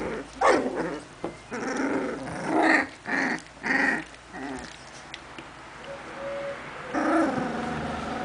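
Hungarian vizsla puppies play-fighting in a heap, giving a quick string of short growls and yelps over the first four or five seconds, then quieter, with another burst of growling near the end.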